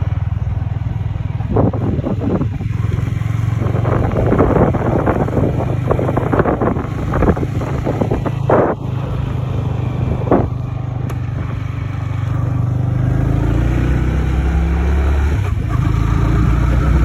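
Yamaha R15 V3's single-cylinder engine running steadily while riding, with gusts of wind buffeting the microphone in the first half. About three-quarters of the way through, the engine note drops lower.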